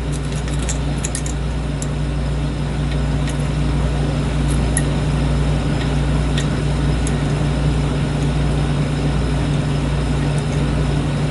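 A steady low hum, with faint scattered metallic ticks from a lock pick working the pins inside a lock cylinder. There is a cluster of ticks in the first second or so, then only a few now and then.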